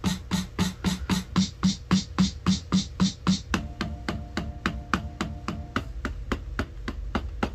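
Akai MPC 2000XL drum samples triggered in quick, even succession, about four hits a second, as its pads are tested after a new pad sensor is installed. Low kick-like thumps that drop in pitch give way about halfway through to hits with a higher sustained tone.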